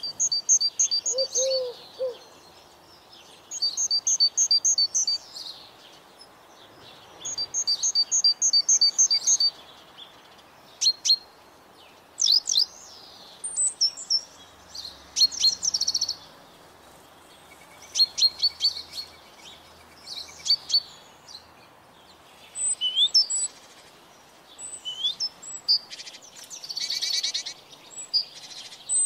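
Songbirds singing: short phrases of high, quick chirping notes that come again every few seconds, with other birds' calls between them.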